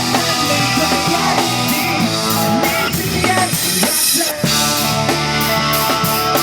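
Pop rock band playing an instrumental passage on drum kit, bass and electric guitar, with a brief break about four seconds in.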